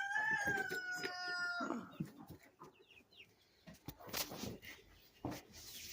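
A rooster crowing once: a long, held, pitched call through the first two seconds that drops away at the end, followed by a few faint clucks.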